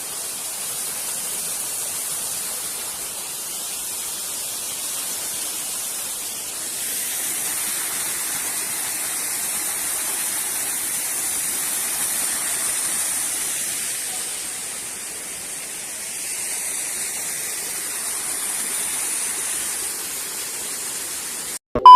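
Small waterfall: a steady rush of falling, splashing water that swells and eases a little. The sound cuts off just before the end, and a loud steady electronic beep begins.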